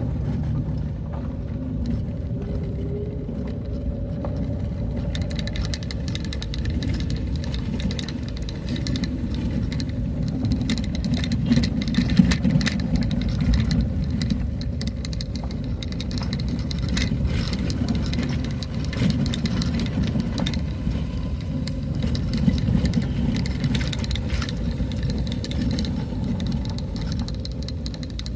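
Vehicle engine running steadily while driving, with frequent clicks and rattles from about five seconds in.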